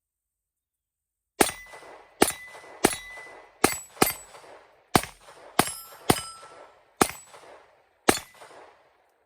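Ruger LCP II .22 LR pistol firing ten shots of CCI Mini-Mag 36-grain hollow points in an uneven string over about seven seconds, each crack followed by a short echoing tail. The pistol cycles the rounds without a stoppage.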